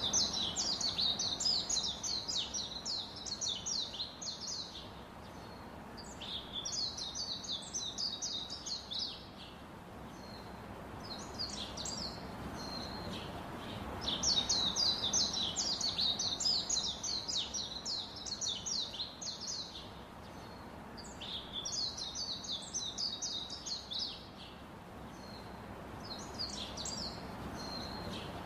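Ducklings peeping: rapid runs of short, high, falling peeps in bouts of a few seconds, with short pauses between, over a steady low background hiss.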